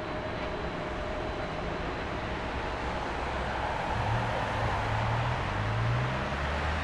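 Steady rushing jet noise of an Airbus A330-200F's Pratt & Whitney engines heard from a distance as the aircraft rolls out after landing. A low, throbbing rumble builds from about four seconds in.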